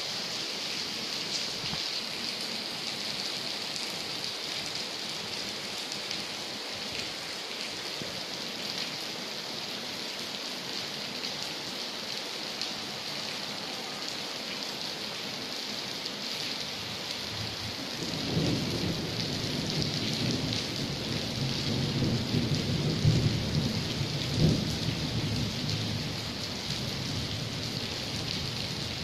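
Steady rain hissing down. About two-thirds of the way in, a low rumble of thunder rolls in for several seconds, peaking twice, then dies back under the rain.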